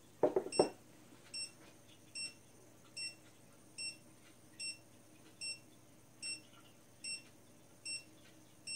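Dogtrace D-Fence 1001 collar receiver beeping inside the boundary wire loop: short, high beeps, evenly spaced about every 0.8 seconds, ten in all. At the very start, a couple of knocks as the collar is set down on the table.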